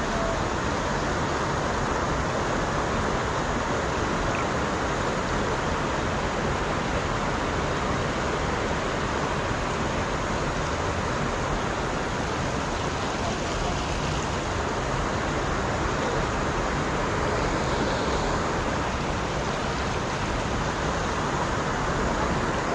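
Fast-flowing stream rushing over rocks, a steady, unbroken wash of water noise.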